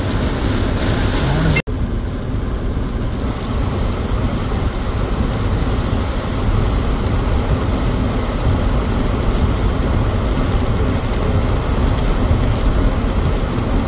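Steady low rumble of a car driving through heavy rain, with road and rain noise. The sound cuts out for an instant about one and a half seconds in, then goes on.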